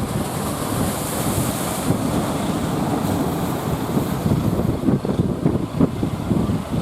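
Wind buffeting the microphone over the rush of heavy surf breaking. A wave's hiss swells about a second in.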